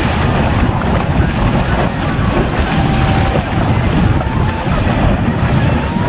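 Steady rushing of floodwater swirling down a whirlpool into a hole in the ground, mixed with wind buffeting the microphone.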